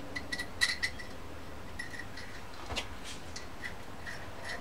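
Small, sharp metal clicks and taps in scattered groups as an Evinrude/Johnson V6 outboard connecting rod and its cap are handled and fitted back together. A faint steady low hum runs underneath.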